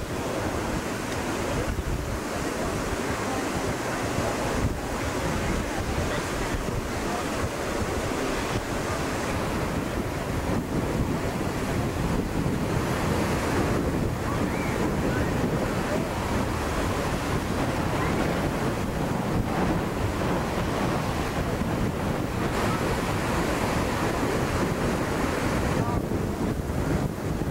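Wind buffeting a camcorder microphone: a steady rushing noise with an uneven low rumble and no break.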